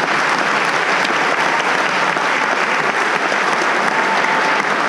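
Audience applauding, a loud, steady clapping in a large hall.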